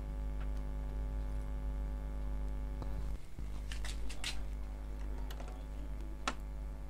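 A few small, sharp plastic clicks and taps from an ink bottle being handled against an Epson printer's ink tank and its blue caps, with a cluster of them about four seconds in and a sharper single click near the end, over a steady low electrical hum.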